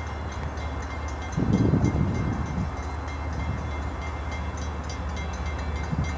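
Distant approaching train: a steady low rumble, with a louder, rougher swell of low noise from about a second and a half in to two and a half seconds in.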